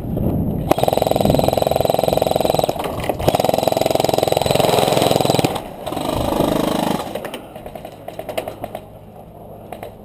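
Airsoft electric rifle firing on full auto: a long burst of about five seconds with rapid gearbox cycling, then a shorter burst of about a second, then fainter scattered shots.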